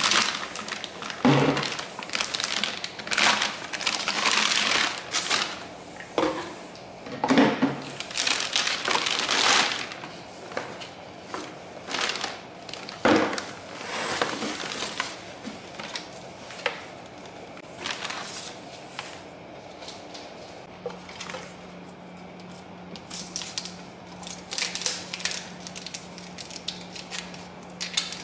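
Plastic packaging crinkling and rustling as a KitchenAid blender's base and parts are pulled from a cardboard box, in dense bursts through the first half, then sparser rustles and light handling knocks. A faint steady hum comes in a little past the middle.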